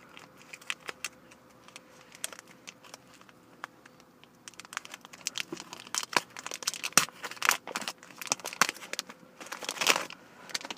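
Trading card booster-pack wrapper being crinkled and torn open by hand. Scattered crackles at first, growing into dense crinkling from about halfway through.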